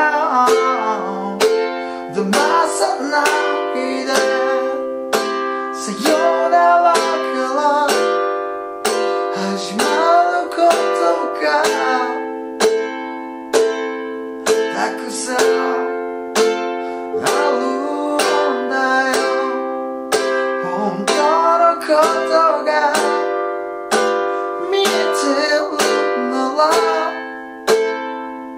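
Ukulele strummed in a steady rhythm through simple chords (D7, F, G7, Am), with a man singing along.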